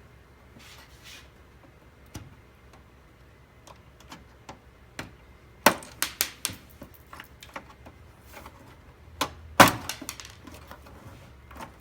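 Plastic back cover of a Samsung UN32J4000AF LCD TV being pried off: a run of sharp clicks and cracks as its snap-together clips let go. The loudest snaps come about six seconds and nine and a half seconds in.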